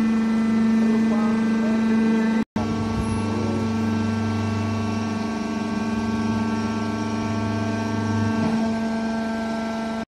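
Hydraulic power unit of an industrial cardboard baler running with a steady electric hum. Just after a brief break about two and a half seconds in, a deeper drone joins for about six seconds while the ram pushes the finished cardboard bale out of the chamber.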